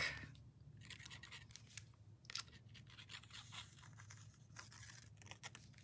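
Faint scratching and light rustling of cardstock being handled as a liquid glue bottle's tip is drawn along a paper strip, with a small sharper click about two seconds in.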